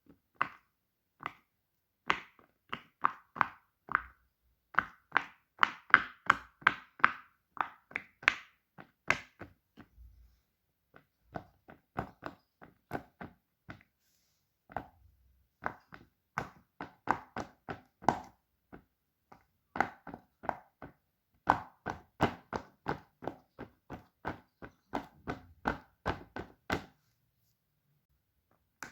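Fidget toys being handled: a run of sharp, irregular taps and clicks, two or three a second, with a short pause about ten seconds in and near the end.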